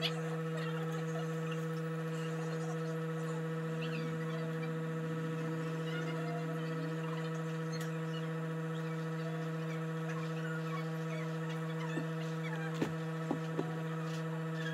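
Steady low electrical hum, with a few faint clicks near the end.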